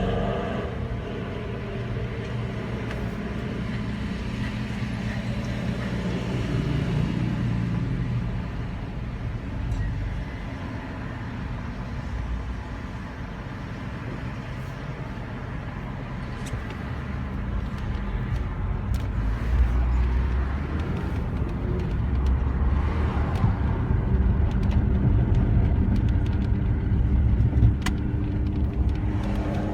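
Nissan car running with a steady low rumble and grinding, the noise whose cause the owner is asking about; it grows somewhat louder in the second half.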